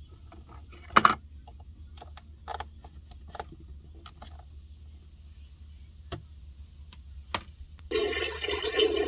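Plastic toy pieces clicking and knocking as a doll is handled in a toy bathroom, one sharp knock about a second in. Near the end a toy toilet's flush sound effect plays for about a second and a half when the doll's hand presses the tank lever.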